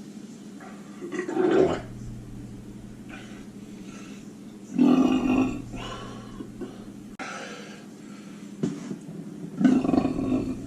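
A man burping three times, each burp loud and drawn out for about a second: one about a second in, one near the middle and one near the end.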